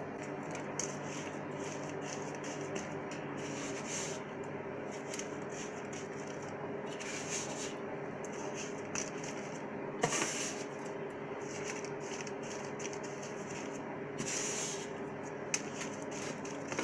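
Hands smoothing and pressing a wet paste of coarse salt and whipped egg white over meat: soft rubbing, with a few brief scratchy rustles, the loudest about ten seconds in, over a steady background hum.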